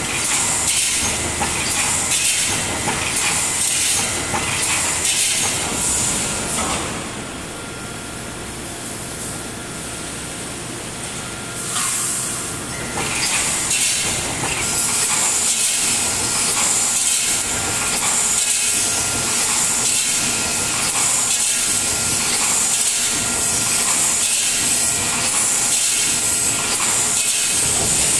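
Automatic wire mesh panel welding machine (3-6 mm wire) running, its welding heads knocking about once a second over a steady hiss, with a quieter stretch of a few seconds before the middle.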